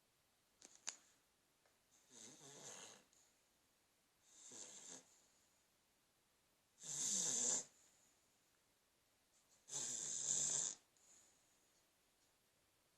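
Shar Pei dog snoring: four rasping snore breaths, one every two and a half to three seconds, the last two the loudest.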